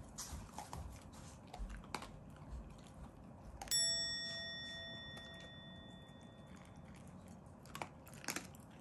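A Shiba Inu eating from his bowl: crunching and chewing with scattered clicks. About four seconds in there is a single bright metallic ding that rings on for about three seconds.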